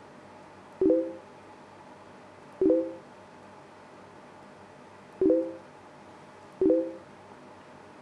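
Facebook chat's new-message alert tone, a short low electronic chime sounding four times at uneven gaps, over a faint steady room hum.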